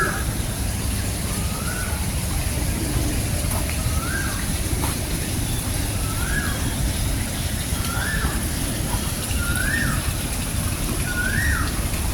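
A bird repeatedly calls one short note that rises and then drops, about every one and a half seconds, over a steady low rumble and a faint steady high hiss.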